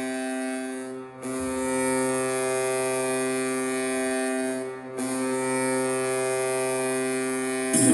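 Hockey arena goal horn sounding in long, steady blasts of a low chord, breaking off briefly about a second in and again near five seconds. Loud music starts just before the end.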